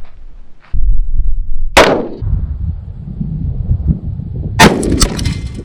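AR-15 rifle shots: one sharp report about two seconds in, then two more in quick succession near the end, each with a short ringing tail. A heavy low rumble runs between them.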